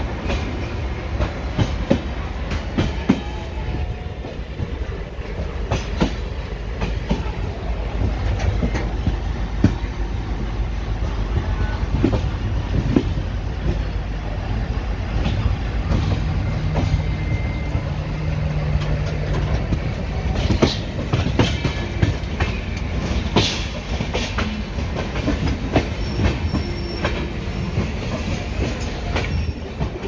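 Passenger train of the 12128 Pune–CSMT Intercity Express rolling along, its wheels clattering over rail joints above a steady rumble, with many short clicks throughout.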